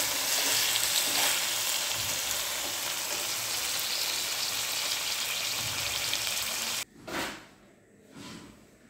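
Puti fish curry sizzling as it fries in a pan. The sizzle cuts off suddenly about seven seconds in, and two short, soft sounds follow.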